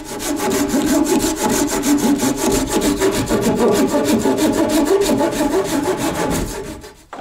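Hand saw cutting into a log of a cabin wall, with fast, even back-and-forth strokes several times a second. The sawing stops near the end.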